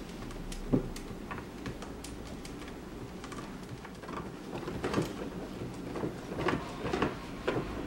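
Clear acrylic panels clicking and knocking lightly against each other and the bench as they are handled and fitted together into a box. The light clicks come at irregular intervals and get busier in the second half.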